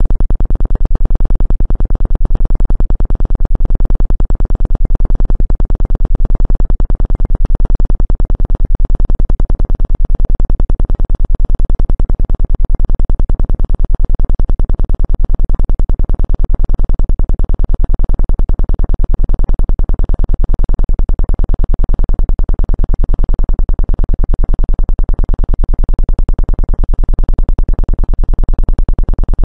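Electronically generated low Rife-frequency tone, pulsing rapidly and evenly at a steady loudness throughout.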